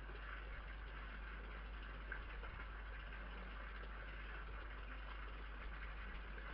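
Steady hiss with a low hum beneath it: the background noise of a security camera's microphone, with one faint tick about two seconds in.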